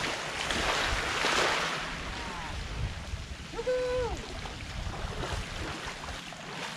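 Shallow seawater splashing in one surge that swells and fades over about two seconds: a hooked fish being fought and drawn through the shallows. A short, held call sounds near the middle.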